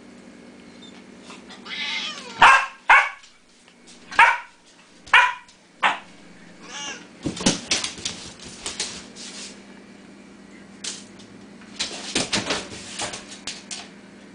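A three-month-old border collie, rottweiler and shepherd mix puppy gives a string of about six short, high-pitched barks over four seconds. These are followed by two bursts of quick scratching and clattering.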